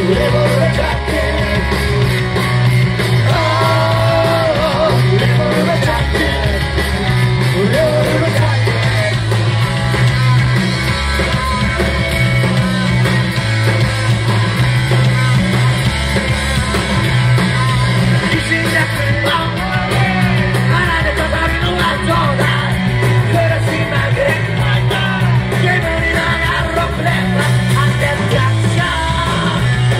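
Live rock and roll band playing loudly, with electric guitar, a bass line stepping between low notes, and shouted singing.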